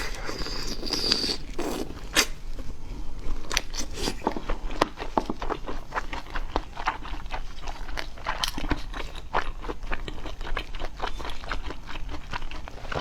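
Close-up eating sounds of seafood: a steady run of irregular crisp crunches and cracks with chewing, and a brief scraping noise near the start.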